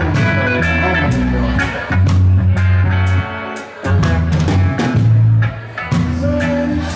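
Live reggae band playing: electric guitar, bass guitar and drum kit, with a deep bass line under steady drum hits and guitar notes.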